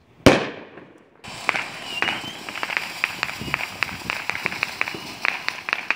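A sharp firework bang, then about a second later a firework spraying sparks with a steady hiss and rapid crackling pops.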